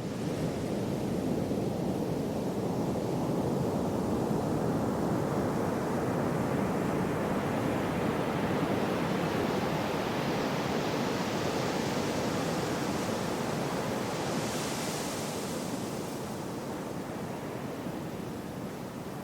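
Gentle sea waves washing in: a steady rushing surf, with one wave building to a brighter hiss about three-quarters through and then ebbing away.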